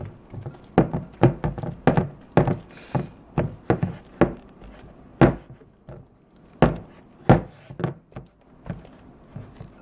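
Fork stirring slime in a bowl, with irregular knocks against the bowl, roughly one or two a second.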